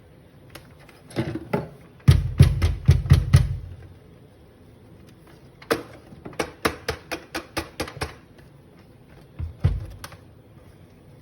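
Quick bursts of hard taps and knocks on a Breville Smart Grinder's parts, as old coffee grounds are knocked out. A run of heavy knocks comes about two seconds in, a longer run of lighter taps a few seconds later, and a last knock near the end.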